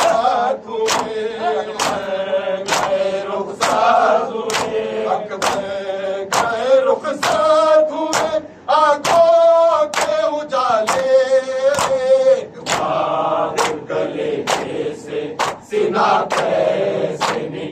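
Men chanting a Muharram noha in unison while beating their chests (matam) in time: a sharp slap of hands on chests about every three-quarters of a second, under the steady group chant.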